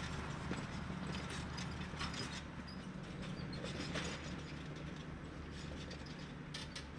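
Valtra T 214 tractor engine running steadily under load while ploughing, with irregular clicking and rattling from the plough and linkage working through rough ground. The sound grows slightly quieter over the stretch.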